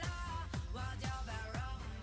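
Background pop music with a steady beat of about two drum hits a second, a strong bass and a wavering melody line.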